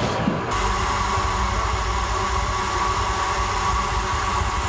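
Crown Locomotive Works 2 ft gauge steam locomotive standing with steam up, giving a steady hiss and low rumble, with a steady tone running through it. The sound changes abruptly about half a second in.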